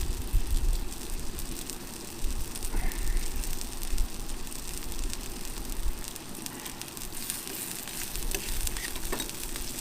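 Wood fire crackling in a titanium wood-burning camp stove: a steady hiss dense with small sharp crackles, over a low rumble.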